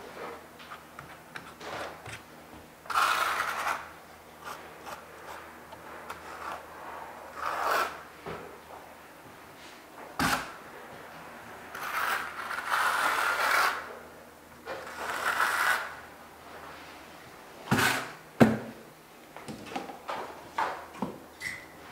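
A flat trowel being scraped firmly over Schluter Kerdi membrane set in thinset, in several strokes about a second long, pressing the sheet flat and squeezing out air bubbles and excess thinset. A few sharp knocks come between the strokes, the loudest about two-thirds of the way through.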